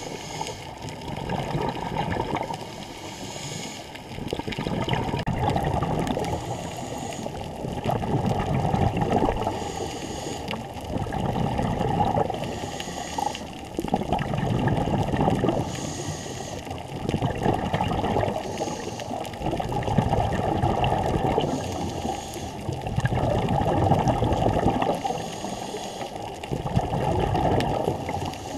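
A scuba diver breathing through a regulator underwater. A short hiss on each inhale alternates with a longer bubbling exhale, the cycle repeating about every three seconds.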